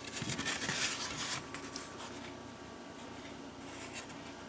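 Paper certificates being handled, with faint rustling and rubbing strokes that are busiest in the first second or so and then die down to a low hiss.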